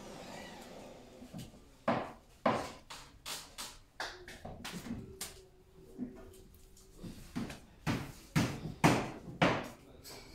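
Irregular sharp knocks and taps of workshop work, a dozen or more at uneven intervals. The loudest come about two seconds in and in a cluster of three near the end.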